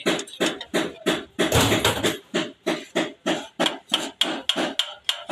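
2012 Toyota Vitz engine running with a regular knocking tick, about three strokes a second: the tappet noise the car is being checked for.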